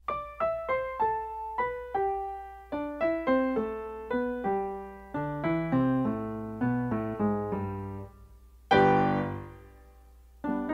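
Solo piano music: a run of single notes that each fade away, with a loud chord about nine seconds in that dies down before the notes start again.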